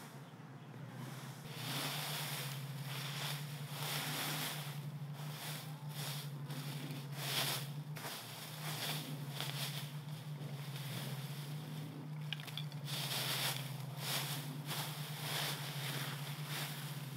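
Dry bamboo leaf litter rustling and crunching in quick, irregular handfuls as it is scraped up and gathered by hand. A steady low hum runs underneath.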